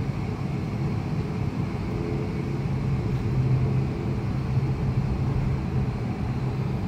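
Cabin sound of an ATR 72-500's Pratt & Whitney PW127 turboprop engines and propellers: a steady drone with a low propeller hum that swells and fades slightly, heard from a seat beside the engine.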